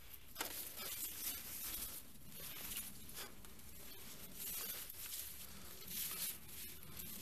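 Tall dry grass and reeds rustling and crackling in irregular strokes as someone walks through them, brushing past the stems.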